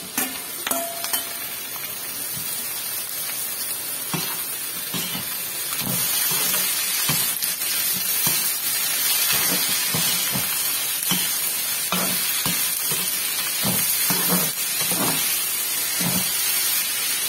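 Parboiled bitter gourd pieces dropping into a kadai of onions frying in hot oil, then sizzling steadily while a spatula stirs and scrapes the pan in repeated short strokes. The stirring comes more often from about four seconds in and gets louder about six seconds in.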